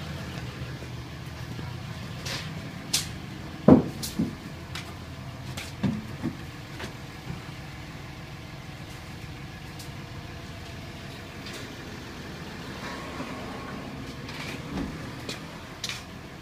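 Scattered knocks and clunks of a race seat being lifted out of a stripped car's cockpit, the loudest about four seconds in, over a steady low hum.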